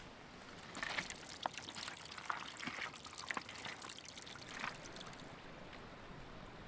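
Water trickling and splashing, with a patter of small splashes from about a second in that dies away near the two-thirds mark, over a steady rushing hiss.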